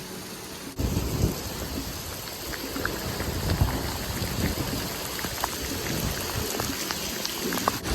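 Heavy rain falling steadily, with scattered drips and splashes; it gets louder abruptly about a second in.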